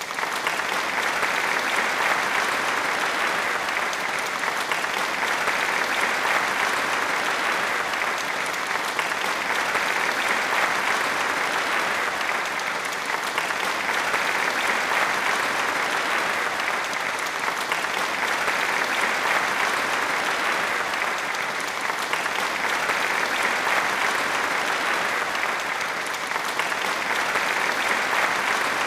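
Sustained applause from a crowd: a dense, steady wash of many hands clapping, swelling and easing slightly in waves.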